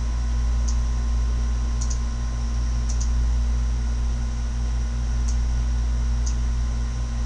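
Steady low electrical hum with a faint hiss, broken by a handful of soft clicks at the computer, some in quick pairs.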